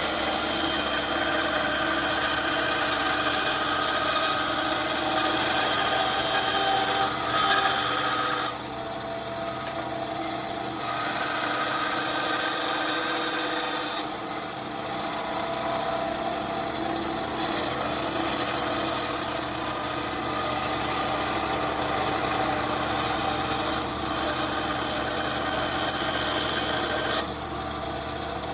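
Einhell 200W hobbyist bandsaw running with a steady motor hum while its blade cuts wood, following a curved line around a circle. The louder cutting noise comes and goes in several long stretches as the wood is fed into the blade and eased off.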